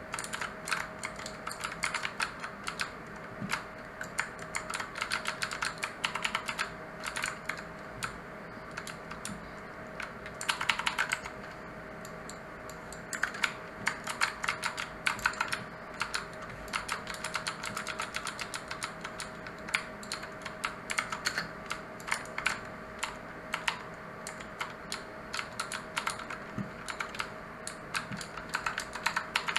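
Typing on a mechanical keyboard with clicky blue switches: irregular rapid keystrokes, each a sharp click, with a quick flurry about ten seconds in. A faint steady hum sits underneath.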